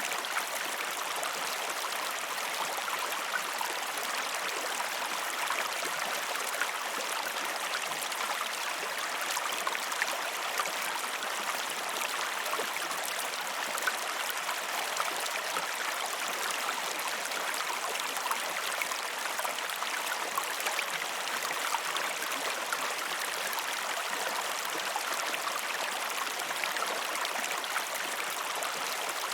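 A river flowing steadily, a continuous rush of water with small splashes and gurgles through it.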